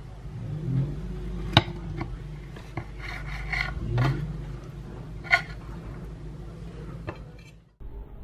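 A knife cutting through a layered sponge cake and scraping on a china plate, with three sharp clinks of metal on china and rubbing as a slice is handled, over a steady low hum.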